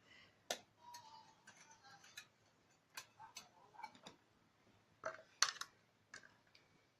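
Light, scattered clinks and taps of kitchen utensils against dishes, with a quick cluster of sharper clicks about five seconds in.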